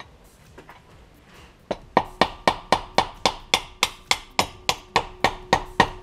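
Rapid, even metal hammer strikes, about four a second, tapping a piston wrist pin out of a Subaru EJ20 boxer engine. The blows start about two seconds in and each rings briefly.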